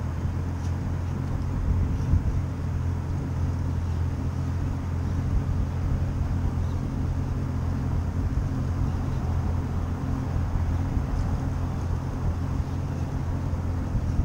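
Outboard motor of a Yamaha 190 FSH center-console boat idling with a steady low hum.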